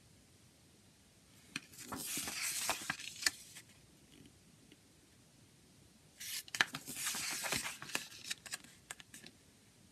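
Pages of a CD album booklet turned by hand, twice: each turn is a papery rustle of about two seconds with small sharp clicks.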